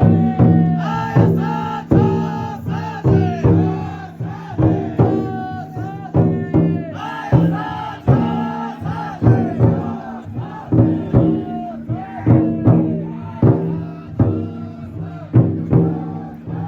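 Taiko drum inside a futon daiko float beaten in a steady, even rhythm, with a group of carriers chanting and shouting along loudly.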